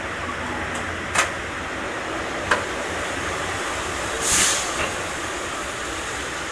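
Steady noise of heavy rain and a passenger train running, heard from inside the coach as it pulls into a station. Two sharp clicks come about a second apart early on, and a brief hiss follows about four seconds in.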